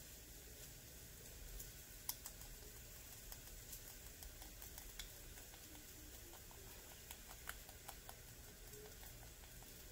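Faint, irregular light clicks and taps from a small glass spice jar and a plastic measuring spoon as ground spice is shaken out into the spoon. One sharper tap comes about two seconds in.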